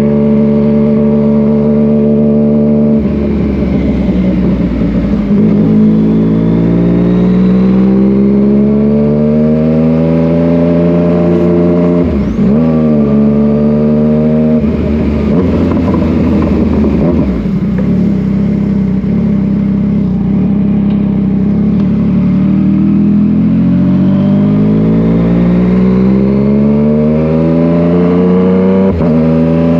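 Yamaha MT-09 motorcycle's inline three-cylinder engine under way, its pitch climbing slowly as it pulls, then holding steady for several seconds, then climbing again, with a few brief sharp dips along the way.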